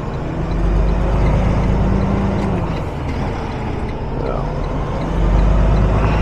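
Semi truck's diesel engine running, heard from inside the cab as the truck rolls slowly; the engine gets louder twice as it is given throttle, about half a second in and again near the end.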